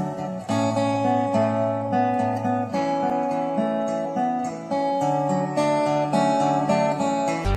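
Background music: a guitar playing a run of chords that change every second or so.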